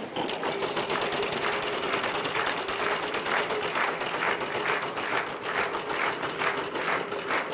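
Game-show prize wheel spinning, its pointer flapper ticking rapidly and evenly against the wheel's pegs.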